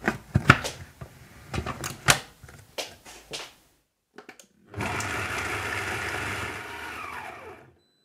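Sharp knocks and clicks in a steel food-processor bowl, then the Magimix Cook Expert's blade runs for about three seconds, chopping red onion quarters, and slows with a falling whine before stopping.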